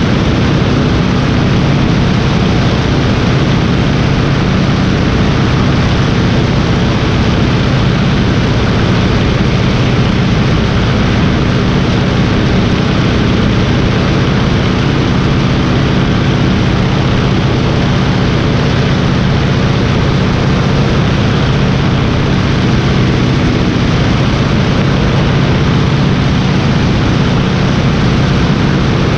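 Stearman biplane's radial engine and propeller running steadily in flight, with a loud, even rush of wind over the wing-mounted microphone.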